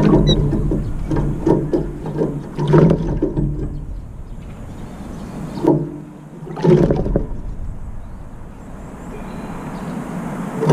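Brown-eared bulbul bathing in a water container, its wings splashing the water in bouts: a run of splashes in the first three seconds, and more about six to seven seconds in.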